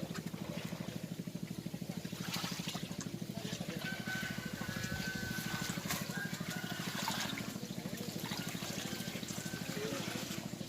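A small engine running steadily with a fast, even beat, with water trickling and scattered light clicks over it.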